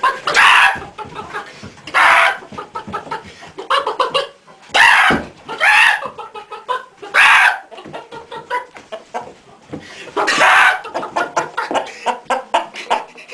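A man imitating a chicken: loud squawks every second or two, with quick clucking between them.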